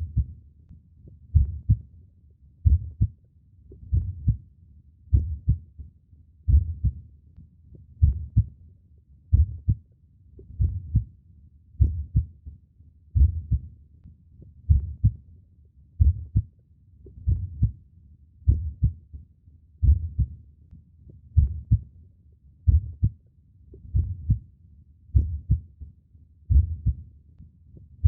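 Human heartbeat: a steady, slow lub-dub of paired low thumps, about 45 beats a minute.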